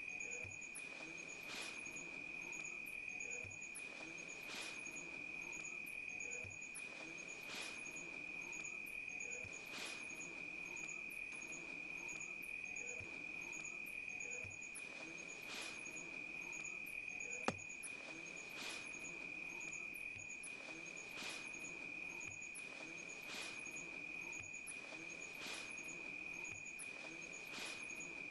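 Insects trilling: one steady high-pitched trill, with quick regular chirps above it and faint ticks every second or so. A single sharp click comes about two-thirds of the way through.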